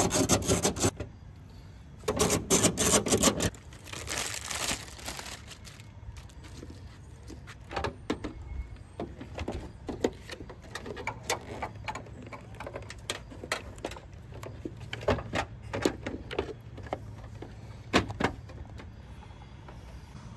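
Hands handling an aftermarket tail light and its mounting hardware on a car's trunk lid. A few loud rubbing and rustling bursts in the first five seconds give way to scattered light clicks and taps of plastic and metal as the light housing is seated and the bolts are put back.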